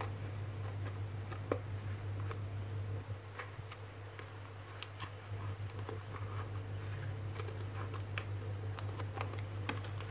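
Scissors snipping through the packing tape and cardboard of a small parcel: a scatter of irregular sharp clicks and snips, the strongest about a second and a half in, over a steady low hum.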